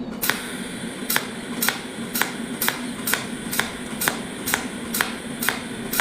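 Sharp mechanical clicks repeating evenly, about two a second, over a steady low hum.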